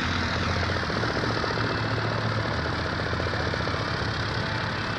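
An engine idling with a fast, even pulse over a steady low hum.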